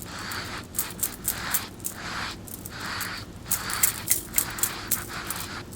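Brushing strokes through hair close to the microphone: repeated short scratchy sweeps, about two a second, with crisp clicking edges.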